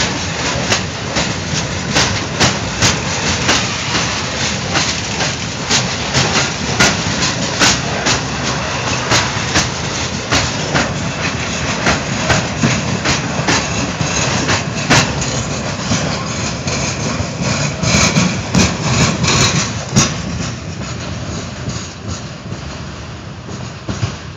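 A freight train of tank wagons rolling past close by, with a steady rumble and frequent sharp clacks from the wheels on the rails. The sound fades over the last few seconds as the end of the train draws away.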